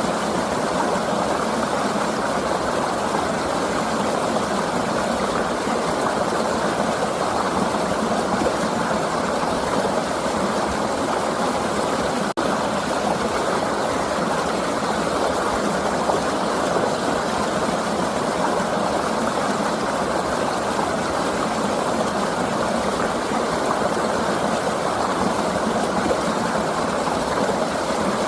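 A river flowing, a steady, even rush of water, broken by a split-second dropout about twelve seconds in.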